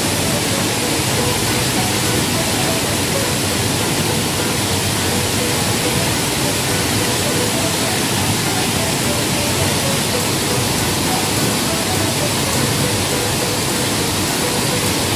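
Steady rushing and splashing of a large artificial waterfall close by, an unbroken wash of water noise at constant loudness.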